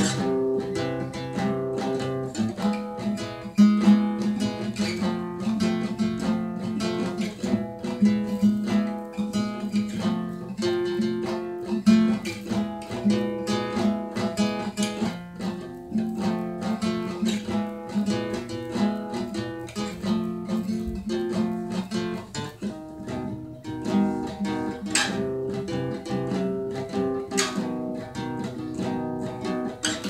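Acoustic guitar strummed, a steady run of chords with repeated strokes.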